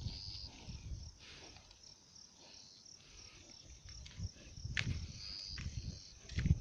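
Insects chirping in a steady, fast run of short high pulses, over irregular low scuffles and thumps that are loudest about five seconds in and again near the end.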